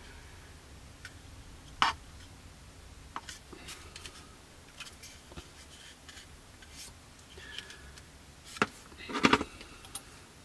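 Scattered small clicks and taps of hands handling a plastic model kit fuselage, squeezing the freshly glued seam, with a louder cluster of clicks near the end as the plastic glue bottle's cap is picked up and taken off.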